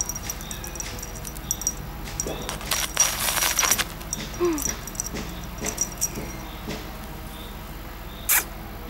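Rustling scuffle lasting about a second, about three seconds in, as a Neva Masquerade cat scrambles through grass onto a stone path. Otherwise a few scattered soft ticks and rustles, with one sharp click near the end.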